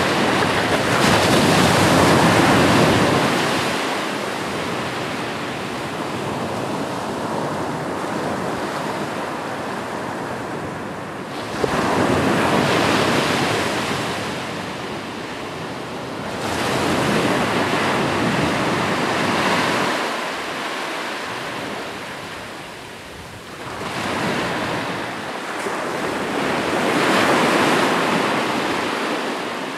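Ocean surf: waves breaking and washing up the shore, swelling and fading four times, with a sudden crash about eleven and a half seconds in.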